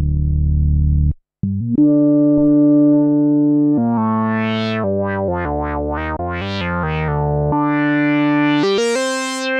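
Moog Subsequent 37 analog synthesizer playing single held notes with no processing. A low, dark note cuts off about a second in, then a new note starts. Midway the filter opens and closes over and over in quick sweeps, and near the end a brighter held note sounds.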